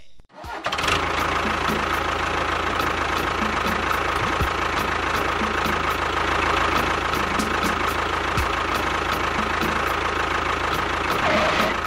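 Tractor engine idling steadily with a regular knock. It starts about a second in and drops away just before the end.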